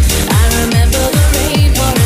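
Electronic dance track with no vocals: a deep kick drum hitting about four times a second under layered synth notes.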